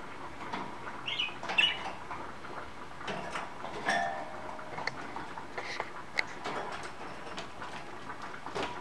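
Budgerigars chirping in short bursts while bathing, with small splashes and light taps of water.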